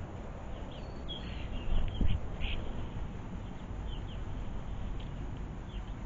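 Small garden birds feeding on the ground give short, high chirps, clustered in the first half and scattered later. A dull thump about two seconds in sits over a steady low rumble.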